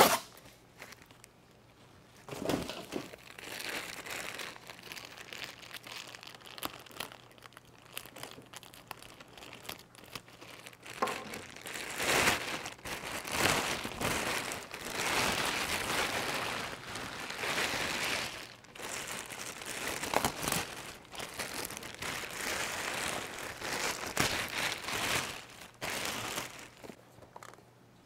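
Plastic packaging, a clear bag liner and bubble wrap, crinkling and rustling in irregular bursts as it is handled and pulled out of a styrofoam shipping cooler. It is fainter at first and gets louder and busier from about ten seconds in.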